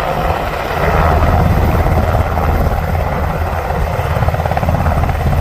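Sikorsky Black Hawk helicopter running, its rotor giving a rapid, steady beat over the rushing noise of its engines, a little louder from about a second in.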